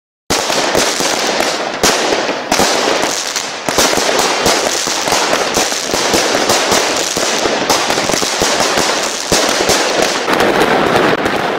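Fireworks going off in a loud, unbroken rapid-fire volley of cracks and bangs, many a second, starting just after the beginning.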